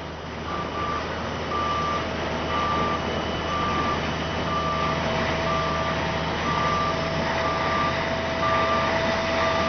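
Dump truck tipping its bed: a back-up alarm beeping about once a second over the running engine, with a steady whine joining about a second and a half in.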